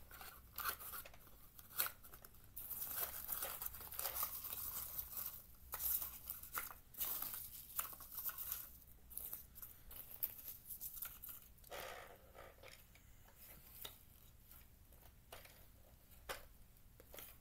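Hand-worked Bruder XE 5000 toy excavator's plastic arm and bucket clicking and scraping as it scoops up torn cardboard scraps, the cardboard bits crinkling and rustling. The handling is busiest in the first half and thins out after that.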